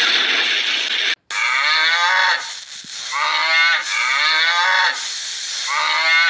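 Cattle mooing: about four long moos, one after another. Before them, a steady hiss that cuts off suddenly about a second in.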